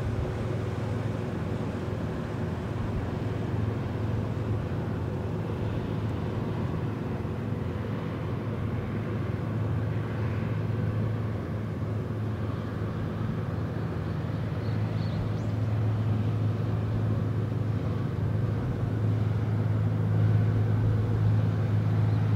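Low, steady engine drone of a 179 m bulk carrier under way, growing a little louder over the last several seconds as the ship comes closer.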